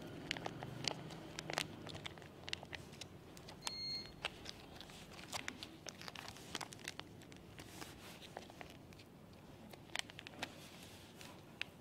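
Plastic vacuum-sealer bag crinkling and rustling as it is handled, with many scattered light clicks. A short high beep sounds about four seconds in.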